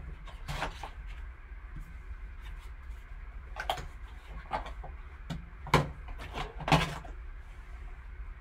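Cardboard trading-card box and a hard clear plastic card case being handled: a scattering of short clicks and scrapes as the box lid is opened and the cased card taken out, the two loudest clicks coming a little past the middle, over a steady low hum.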